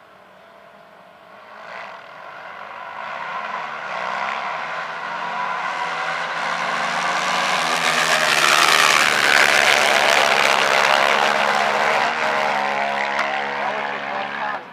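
ATV engines accelerating hard down a drag strip, growing steadily louder as they approach and pass, loudest about eight to eleven seconds in, then dropping off sharply near the end.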